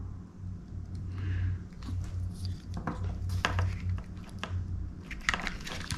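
Scattered light clicks and rustles of a wire and crimp connector being handled and seated in a crimping tool, over a steady low hum.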